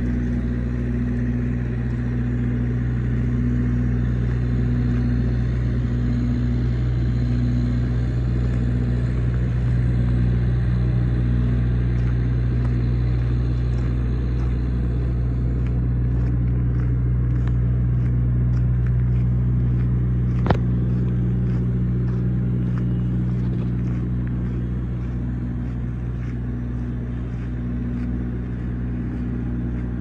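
Engine of a 1994 Blue Bird TC2000 bus idling steadily with a low, even hum. A single sharp click sounds about two-thirds of the way through.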